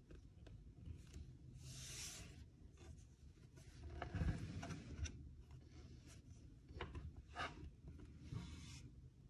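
Faint handling sounds: light rubbing and rustling with scattered small clicks and knocks, the loudest about four seconds in.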